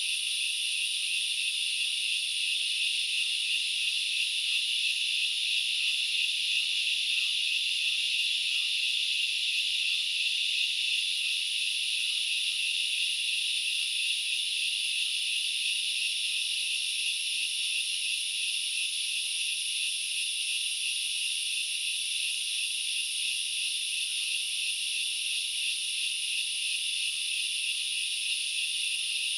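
Dense chorus of forest insects: a continuous, high-pitched buzzing hiss at an even level, with no pauses.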